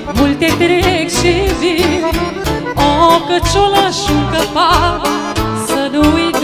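Romanian folk band playing an instrumental passage: clarinet carrying a fast, heavily ornamented melody with trills over cimbalom (țambal) and Weltmeister accordion accompaniment, with a steady beat in the bass.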